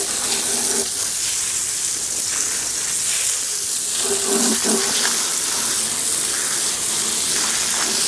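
Garden hose spraying water onto an air-conditioner condenser's pad and coil: a steady hiss of spray with water splattering.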